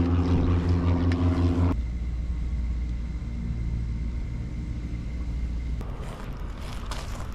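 A motor running with a steady drone, cut off abruptly about two seconds in. A quieter low rumble is left, with faint crackling near the end.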